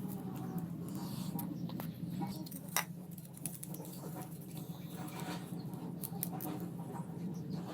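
A low steady hum with scattered scratching, rustling and sharp clicks over it, one click louder than the rest a little before the middle.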